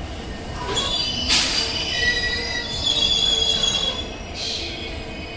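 A passenger train's wheels squealing on the rails as it rolls slowly into the station: several high, wavering squeal tones that come and go, with a brief hiss about a second and a half in.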